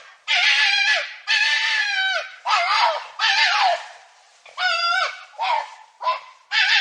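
An animal calling: a run of about eight harsh, wavering squealing calls, each under a second long, with short gaps between them.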